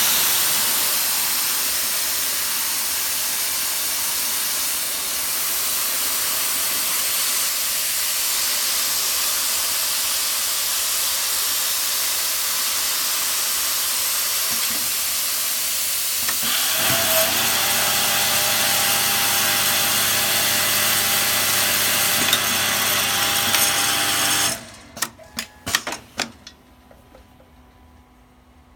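Automatic rib band setting sewing machine running with a steady hiss, growing louder with a steady motor hum about 16 seconds in. It stops suddenly near the end, stopping automatically at the band's joining seam, and a few sharp clicks follow.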